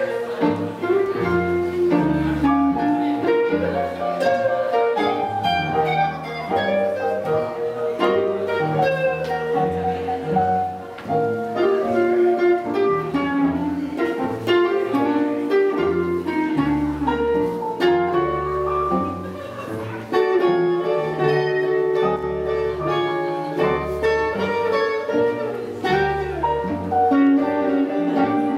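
Small live swing band playing an upbeat tune: upright double bass walking a note-by-note bass line under keyboard and guitar.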